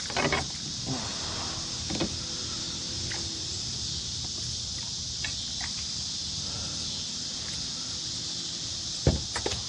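Steady high-pitched insect chorus from crickets or cicadas, with the whirring of a fishing reel being cranked and a few short clicks. A louder cluster of sharp knocks and splashes comes near the end.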